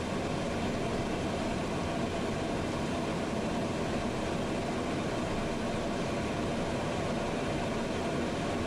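Steady cabin noise inside the cockpit of a twin-engine Cessna Citation jet in flight: the turbofan engines' hum mixed with airflow over the airframe, with a faint steady whine in the middle range.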